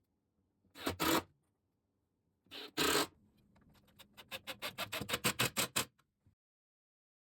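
Woodworking handling sounds: two short scraping strokes, then a quick run of sharp clicks that stops about six seconds in.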